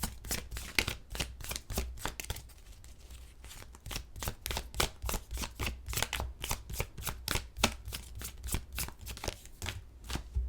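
A deck of tarot cards being shuffled by hand: a quick run of light card slaps and flicks, easing off for a moment about two to four seconds in.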